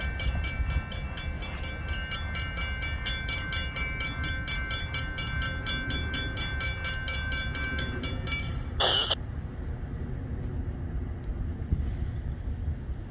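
Railroad grade-crossing warning bell ringing in rapid, evenly spaced strokes while the crossing gates come down; the bell stops about eight seconds in, leaving a low steady rumble. A brief, sharp, higher-pitched sound comes about a second after the bell stops.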